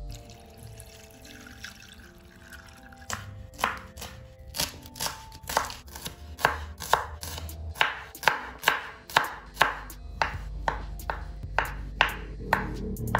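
Large kitchen knife slicing a small red onion and then a sausage on a wooden cutting board: sharp chopping knocks, about two a second, starting about three seconds in.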